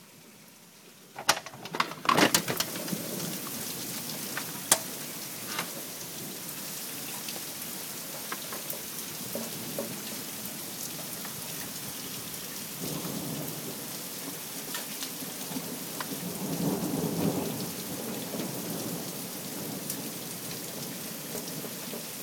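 Heavy rain pouring down steadily during a severe thunderstorm. The rain comes in suddenly about a second in along with a few sharp cracks. A low rumble of thunder swells up twice in the second half.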